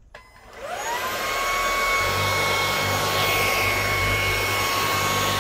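Bissell IconPet Pro cordless stick vacuum switched on with a click. Its motor spins up with a rising whine over about a second, then runs steadily with a high whine over the rush of air.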